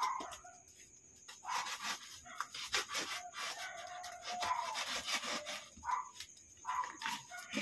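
A taped cardboard box being torn open by hand: the flap is pulled back in a run of scratchy rips and rubs of cardboard and packing tape.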